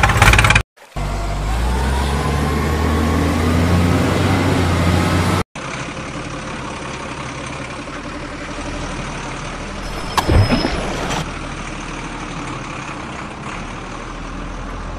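Truck engine sound effects laid over the footage, in pieces with abrupt cuts. First a deep engine revving with a slowly rising pitch, then a steadier engine rumble with a short sharp hiss about ten seconds in.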